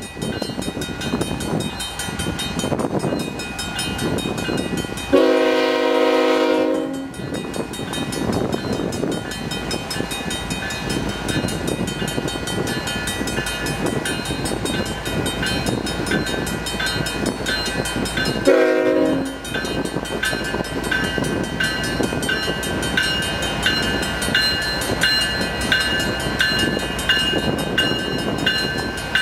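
Freight train horn from the lead GE locomotive: a long blast about five seconds in and a short one past halfway, over the steady rumble of diesel locomotives pulling a train away from a stop, with wind noise on the microphone. A grade-crossing bell rings in the second half.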